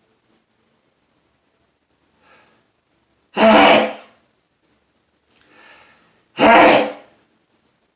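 A man sneezing loudly and unstifled, twice, about three seconds apart. Each sneeze is preceded by a faint in-breath.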